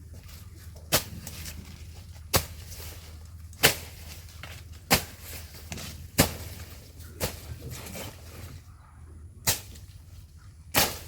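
Grass being slashed with a swung sword-like blade, each stroke a sharp swish, about nine of them at a steady pace of roughly one every second and a quarter.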